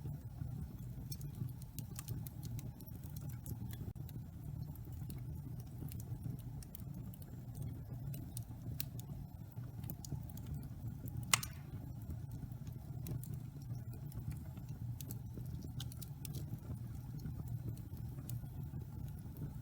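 Wood fire burning in a fireplace: a steady low rumble of flames with scattered small crackles, and one louder pop about halfway through.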